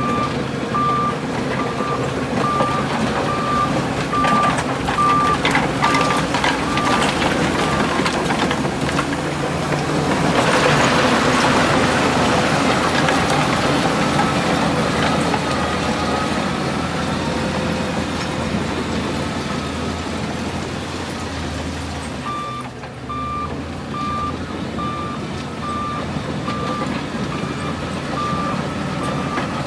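Heavy diesel earthmoving machinery running steadily, most likely a Shantui bulldozer working gravel, with a reversing alarm beeping steadily over it for the first several seconds and again in the last third. A louder rushing noise swells for a few seconds around the middle.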